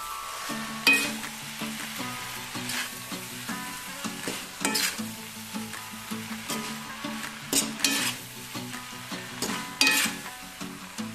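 Chowmein noodles stir-frying in a hot wok: a steady sizzle, with a metal spatula scraping and knocking against the pan every second or two as the noodles are tossed.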